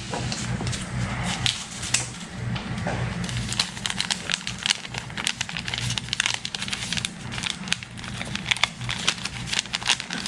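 Small paper sachets of Alsa baking powder crinkling and rustling as they are handled, opened and shaken out into a bowl of flour.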